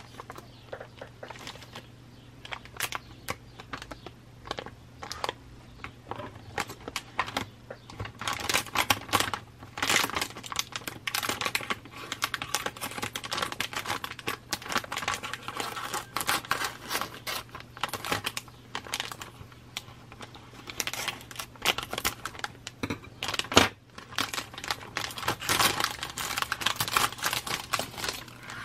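Clear plastic bags holding plastic model-kit runners crinkling and rustling as they are handled and opened, in irregular bursts with sharp clicks and taps scattered through. A single sharp click late on is the loudest sound.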